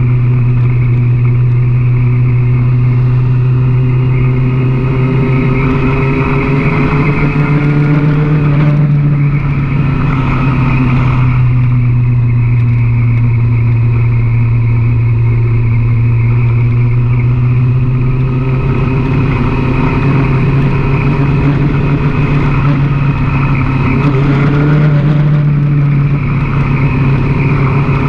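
Sport motorcycle engine running steadily while the bike is ridden along a road. Its note rises briefly twice, about a quarter of the way in and again near the end. Wind noise on the microphone runs under it.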